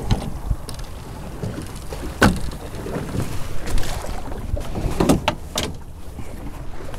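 Boat under way on open ocean: a steady rumble of wind on the microphone and water along the hull, broken by a few sudden thumps about two, four and five seconds in.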